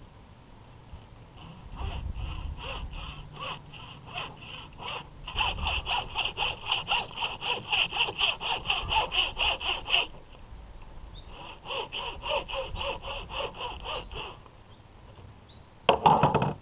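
Meat hacksaw sawing through a white sea bass's backbone in quick, rhythmic back-and-forth rasping strokes. The strokes come in runs: a lighter start, a louder fast stretch, a short pause, then another run.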